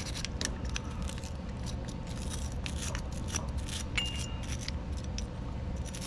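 A small nylon brush scrubbing the body of a snowblower's Huayi carburetor in quick, irregular scratchy strokes. It is working loose ethanol varnish and gum that the ultrasonic cleaner has softened.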